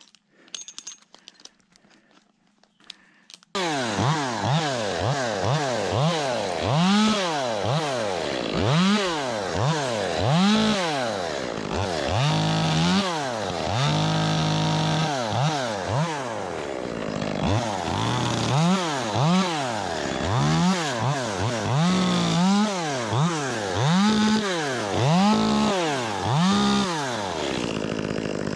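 Ported Echo 25T two-stroke top-handle chainsaw, coming in abruptly about three and a half seconds in after a quiet start, then revved up and down about once a second, with a few longer stretches held at high revs.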